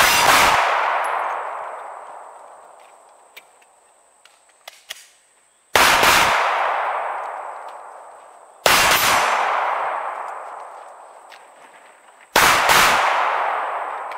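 Pistol fire in four bursts: one at the start, then about six, nine and twelve seconds in. Each burst is a sharp crack followed by a long, slowly fading ring.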